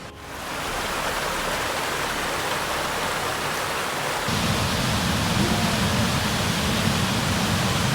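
Rushing water of a river torrent pouring down through a narrow rock chasm, a steady, even rush. It gets fuller and heavier about four seconds in.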